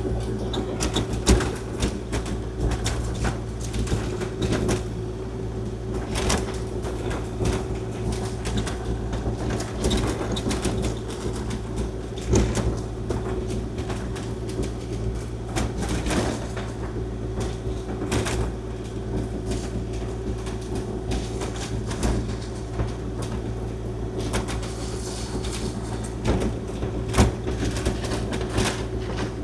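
Kubota KX040-4 mini excavator's diesel engine running steadily under load, with frequent irregular knocks and clatter as the tracks and blade work over frozen, snowy gravel.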